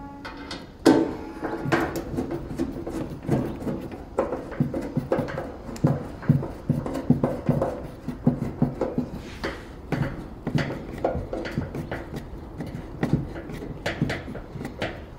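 Hand screwdriver driving screws into a steel car guard panel. It makes an irregular run of clicks and knocks, two or three a second, with the thin sheet metal ringing briefly after each. The sharpest knock comes about a second in.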